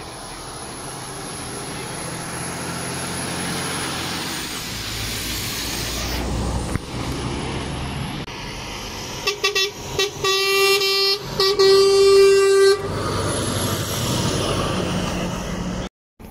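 A lorry's engine running as it draws closer and passes, then its horn sounds in a few quick short toots followed by two longer blasts. The sound cuts off suddenly near the end.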